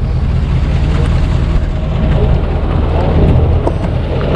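Vehicle engine and road noise, a steady low rumble.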